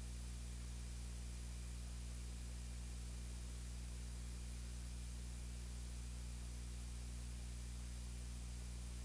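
Steady low electrical hum with a constant hiss, unchanging throughout, and no voice.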